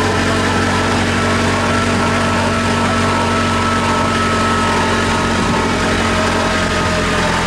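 Engine of an open-sided vehicle running steadily as it drives along, heard from on board: a constant hum with a faint steady whine over it.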